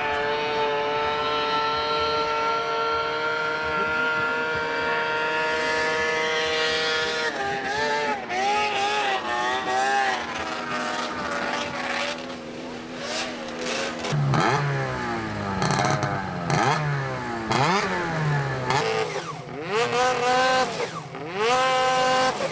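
Snowmobile engine running at high, steady revs for about seven seconds, then revving up and down repeatedly, its pitch swinging through the rest.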